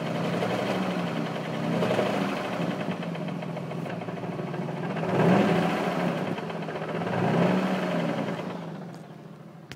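Infiniti G35 coupe's 3.5-litre V6 idling under the car with a fast rattle over it, revved briefly three times. The owner suspects the noise comes from the aftermarket single-mass flywheel and six-puck clutch, and the catalytic converter.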